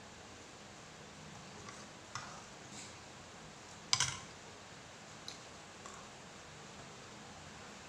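Sparse eating sounds from a meal eaten by hand off a plate: small clicks and crunches of crispy salted dried fish and rice, with one sharper click about four seconds in, over a steady faint hiss.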